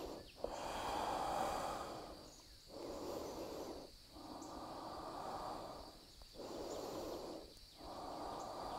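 A woman breathing audibly in slow, even breaths in and out, each lasting one to two seconds, while holding a yoga pose.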